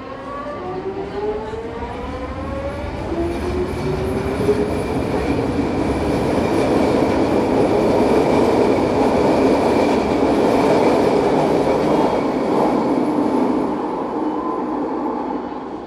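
Vancouver SkyTrain Mark I train pulling out of an underground station. Its motor drive gives a whine of several tones rising in pitch over the first few seconds as it accelerates. Then the rushing rumble of the cars going past builds to its loudest about halfway and dies away near the end as the train leaves.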